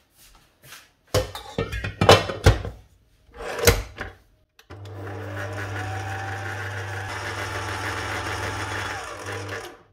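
A few sharp metal knocks and clunks, then a stand mixer's motor starts about halfway through and runs steadily for about five seconds, its flat beater stirring a dry mix of flour, ground nuts, cocoa and sugar, before it stops just before the end.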